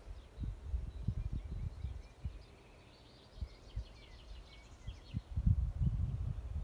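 Wind buffeting the microphone in low, uneven gusts, strongest near the end, with a bird chirping in quick short notes in the middle.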